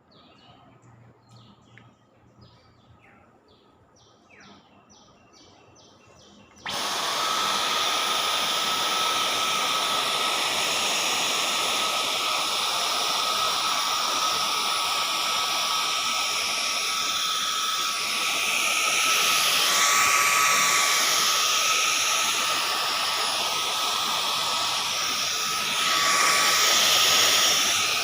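Faint bird chirps, then about a quarter of the way in a Dyson vacuum cleaner switches on and runs with a steady whine over rushing air as it sucks up dust and dirt. The rush of air swells twice in the second half.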